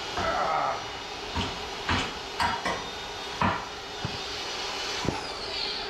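Steady hiss of compressed air feeding the rear air-ride bags as the suspension is cycled for a lift test, with several sharp metal clunks and knocks at irregular intervals.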